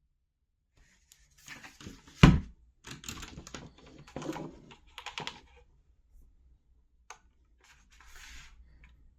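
Typing on a mechanical keyboard with linear red switches: irregular runs of key clacks, with one much louder thump a little over two seconds in, then a pause and a short final run near the end.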